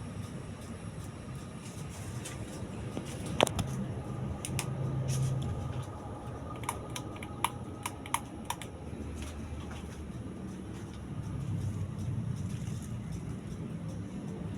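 Ceiling fan motor running with a steady low hum, with scattered small sharp clicks: one louder click a few seconds in and a quick cluster of clicks a little past the middle.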